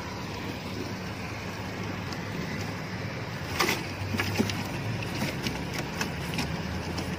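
Hands working through a wet cast net full of fish: a cluster of sharp clicks and rustles from about halfway through, over a steady low hum and hiss.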